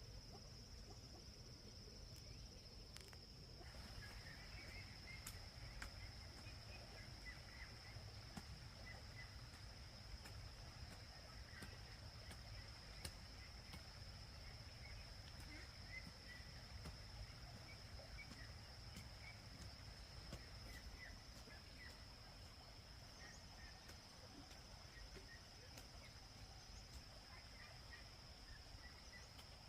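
Faint, steady, high-pitched drone of insects in the countryside, with scattered faint chirps and a low background rumble.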